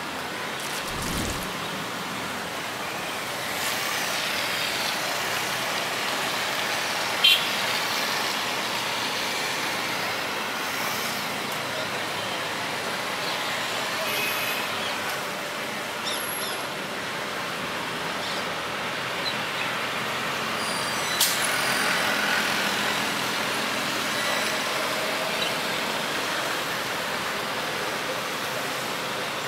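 Jet engines of a taxiing Qatar Airways Airbus A330 running at low power: a steady rushing noise with a faint whine that slowly shifts in pitch. Two short sharp clicks come about seven and twenty-one seconds in.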